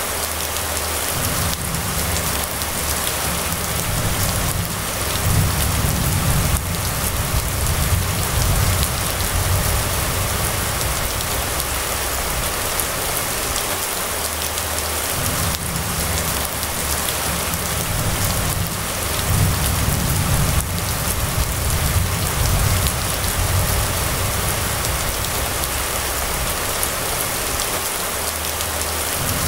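Steady rain falling on a wet street, an even hiss throughout. Under it, a low rumble comes and goes in long swells of several seconds.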